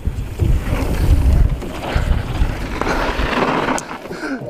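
Mountain bike riding down a dirt trail: wind buffets the onboard microphone and the tyres rumble over the ground, with a rougher hiss of tyres on loose dirt about three seconds in. The noise eases off near the end.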